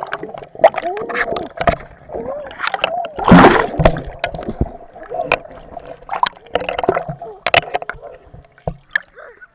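Sea water splashing and sloshing close to the microphone in irregular bursts, the loudest about three and a half seconds in.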